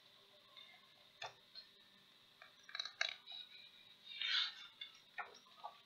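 Faint, scattered clicks and brief soft rustles from fingers handling the pages of a picture book.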